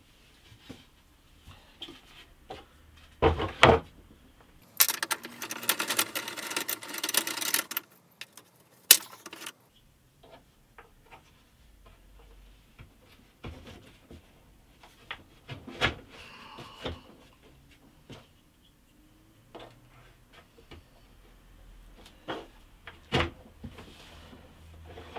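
Scattered knocks, taps and clicks of wooden and plastic bench dogs being pushed into the holes of a hardwood workbench top and of a board being laid and shifted on it. A loud knock about three seconds in, then about three seconds of scraping and rustling.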